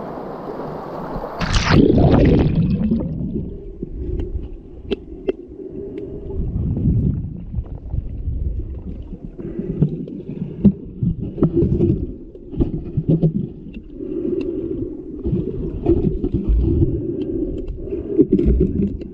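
Rushing river water, then a splash about a second and a half in as the camera goes under. After that, muffled underwater rumbling and gurgling with scattered clicks and knocks.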